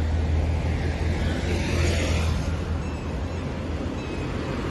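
Road traffic passing on a divided highway: a vehicle's tyre hiss swells and fades about two seconds in, over a steady low rumble.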